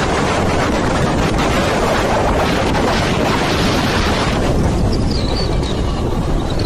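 Wind rushing over the microphone of a phone filming from a moving car, mixed with road noise: a loud, steady rush. A faint wavering high whistle comes through briefly about five seconds in.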